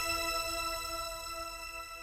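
Background music's final held chord ringing out and slowly fading away.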